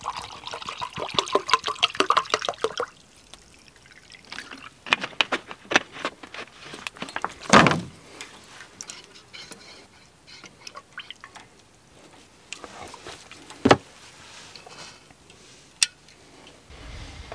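Water glugging from a plastic bottle into a metal camping mug for about three seconds, rising slightly in pitch as the mug fills. Then light clicks and scrapes of a spoon and mug being handled, with a few sharper knocks: one heavy knock about halfway through, another later, and a sharp click near the end.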